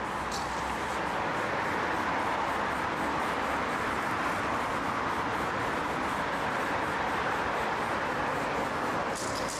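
Steady noise of passing traffic under the bridge, with a short spray-can hiss just after the start.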